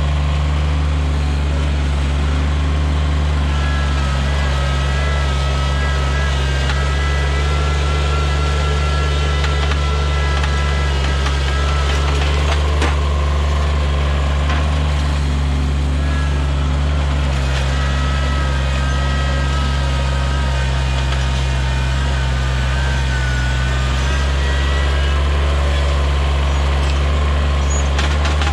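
Kubota BX subcompact tractor's three-cylinder diesel running steadily under load while the front loader pries a stump out with a stump bucket. A higher whine from the loader hydraulics comes in twice for several seconds as they strain, and there is one sudden sharp knock about halfway through.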